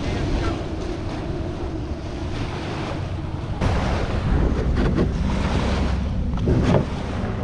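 Wind buffeting the microphone over small waves washing onto a sandy beach, with a few louder rushes in the second half.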